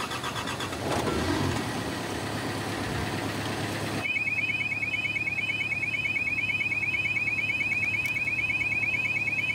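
A mini crane's electronic warning alarm starting about four seconds in, a fast, evenly repeating warble with short beeps above it, over a steady engine hum.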